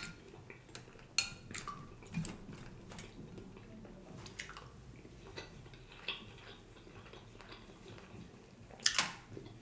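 Quiet eating sounds: chewing and mouth noises, with scattered small clicks and taps of a plastic fork scooping yellow rice from a glass container. A sharper clatter comes near the end.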